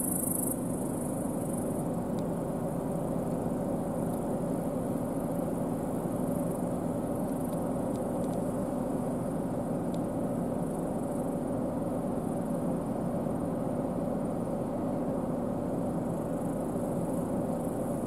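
New Holland CR10.90 combine harvester running steadily while threshing barley: a constant drone of engine and threshing machinery with a steady hum.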